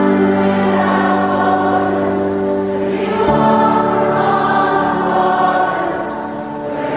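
Background music: a choir singing slow, sustained chords, changing to a new chord about three seconds in.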